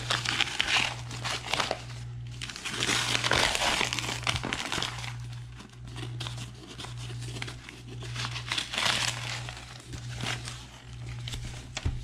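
Brown paper wrapping being crumpled and torn off a cardboard box by hand, in several irregular bursts of crinkling and rustling. A steady low hum runs underneath.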